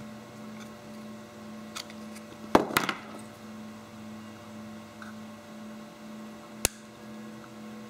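Hand tools clicking and clattering against a workbench about two and a half seconds in, then a single sharp snip near the end as small flush cutters clip a length of magnet wire. A low steady hum runs underneath.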